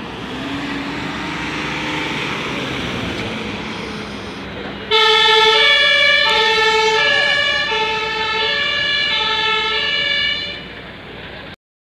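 An ambulance's German two-tone siren (Martinshorn) switches on suddenly about five seconds in and is loud, alternating steadily between two pitches. It gets quieter shortly before cutting off near the end. Before it, a vehicle runs amid steady background noise.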